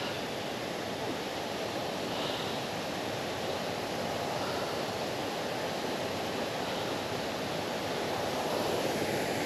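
Steady rushing of a moorland brook running over rocks.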